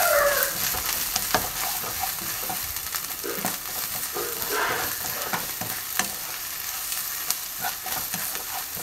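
Chopped onions sizzling as they sauté in oil in a nonstick kadai, stirred with a spatula that clicks and scrapes against the pan now and then.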